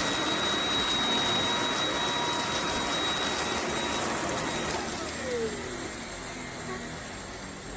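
Eureka RapidClean Pro cordless stick vacuum running with a steady rushing noise and a high motor whine. About five seconds in, a tone glides downward and the vacuum goes a little quieter.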